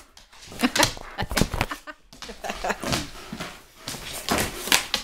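Irregular knocks, thumps and clatters from a German Shepherd tussling with a cardboard box on a hard floor.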